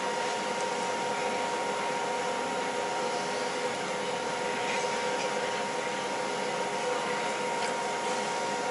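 A machine's fan running steadily: an even whir with a steady hum of a few tones on top.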